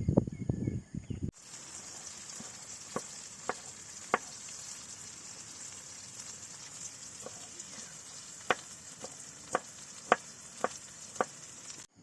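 Food frying in a pan: a steady high sizzle with about ten sharp pops of spattering oil, after a second of low, uneven noise that stops at a cut.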